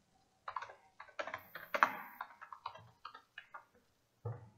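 Typing on a computer keyboard: a quick, irregular run of keystrokes, then a duller, heavier knock about four seconds in.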